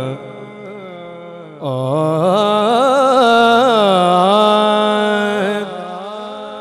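A male naat reciter singing a long, wordless, ornamented vocal phrase into a microphone as the opening of a manqabat. His voice wavers and glides up and down over a steady low drone, swelling about a second and a half in and easing off near the end.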